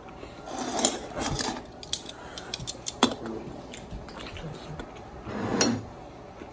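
A man biting into a large pickle and chewing it with crunching: a bite near the start, a string of crisp crunches in the middle, and another bite near the end.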